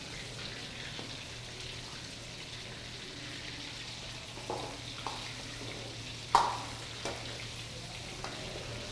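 Marinated boneless chicken pieces deep-frying in hot oil in a wok, a steady sizzle. A metal ladle stirring them knocks against the wok a few times, with one sharp ringing clink about six seconds in.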